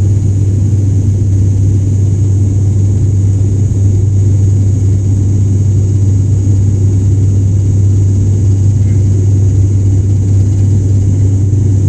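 Loud, steady drone of a turboprop airliner's engines and propellers during the climb after takeoff, heard from inside the cabin: a deep, even hum with a faint high whine above it, unchanging throughout.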